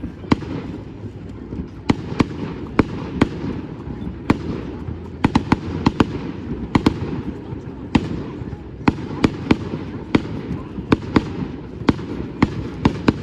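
Fireworks display: a rapid, irregular string of sharp bangs from bursting aerial shells, two or three a second, over a steady low background rumble.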